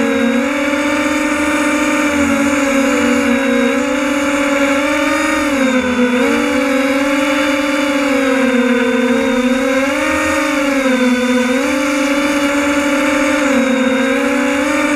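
Multirotor drone's electric motors and propellers buzzing steadily, the pitch sagging and recovering several times as the motors change speed to hold the aircraft in flight.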